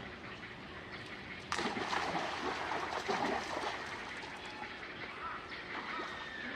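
Water splashing and trickling, with a sudden louder burst of splashing about a second and a half in that lasts about two seconds before easing back.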